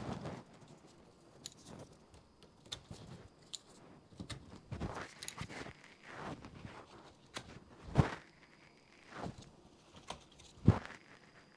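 Footsteps and handling noise, with a few light sharp clicks and two louder thumps, one about eight seconds in and one near the end.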